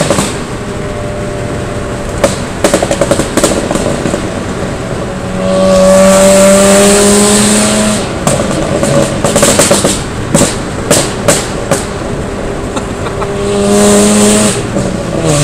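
Car engine revved hard and held at a steady high pitch twice, with rapid popping and crackling from the exhaust between the revs.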